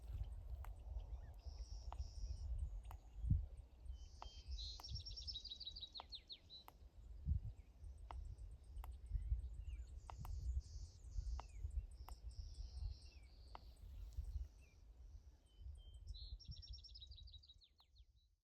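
Small songbirds singing, one giving a fast trill that falls in pitch, twice, with other short chirps between, over a steady low rumble.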